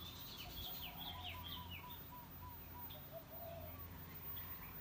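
Small birds calling in the trees: a quick run of high, falling chirps over the first two seconds, with a lower short note repeated about twice a second, over a low steady hum.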